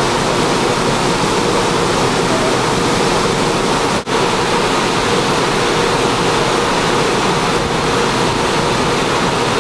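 Steady loud rushing of wind and water, with a faint steady hum underneath; it cuts out for an instant about four seconds in.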